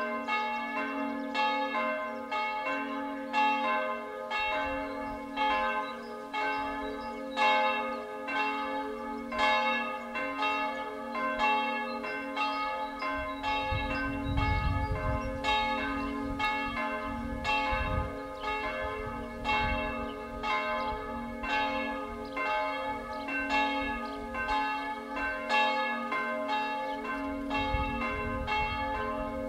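Historic church bells ringing in peal, strikes following one another roughly every half second to second, each tone ringing on.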